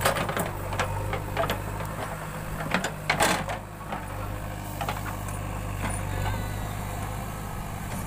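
JCB 3DX backhoe loader's diesel engine running steadily. Over it come a series of sharp knocks and clanks as the backhoe arm and bucket dig into the soil, the loudest cluster about three seconds in.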